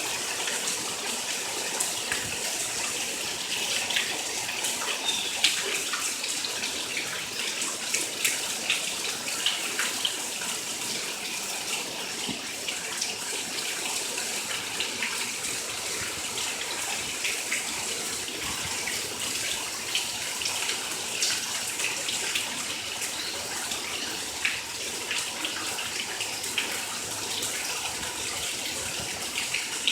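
Rain and floodwater: a steady rush of water, sprinkled with many small drips and splashes.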